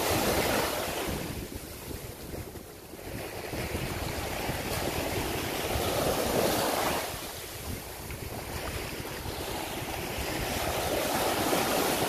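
Small waves breaking and washing up a sandy beach, the rush of foam swelling and fading in turn, with wind rumbling on the microphone.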